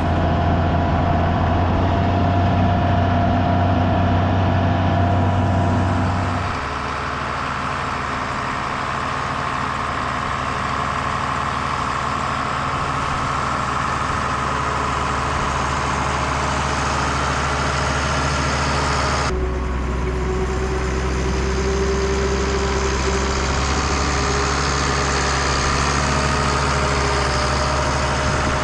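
Farm tractor's diesel engine running steadily. Its note changes twice, about six seconds in and again near the twentieth second.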